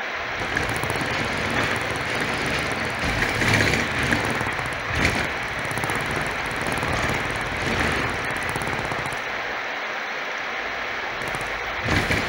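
A vinyl track played loud through a DIY rotary subwoofer, whose fan blades spin at 15 Hz, picked up by a phone microphone as a dense distorted rumble with heavy hits every second or so. A very slight rattle from the rotary sub is all that mars it.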